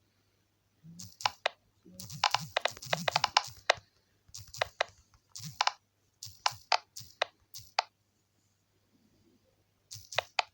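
Pop-it bubbles being popped: quick runs of sharp popping clicks in irregular bursts, densest about two to four seconds in, with a pause of about two seconds near the end.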